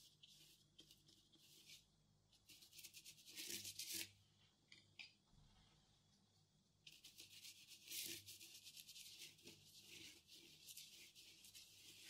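Faint scratchy brushing: a paintbrush scrubbing paint across a textured collage of papers and string, in quick back-and-forth strokes. The strokes pause for about three seconds in the middle, then run on steadily.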